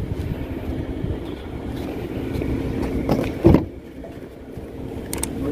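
Steady low hum of an idling car engine, with one sharp thump about three and a half seconds in as a car door handle is pulled and the door unlatches.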